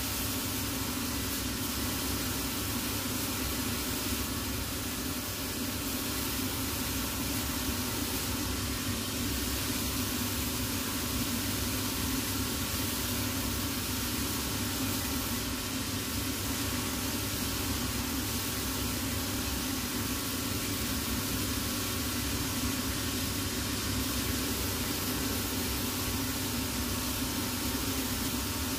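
Cobbler's shoe-finishing machine running steadily, its motor and sanding drums giving an even whir, as a shoe's heel and leather sole edge are sanded against the spinning drum.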